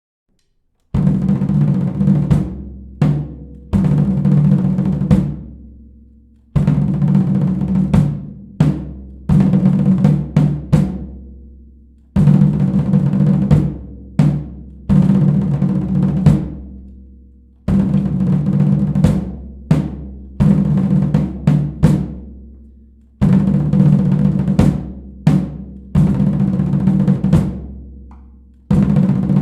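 Drum cadence on snare and bass drums: snare rolls and accented strikes over bass-drum beats, played as a loud repeating phrase that starts again about every five and a half seconds. It begins about a second in.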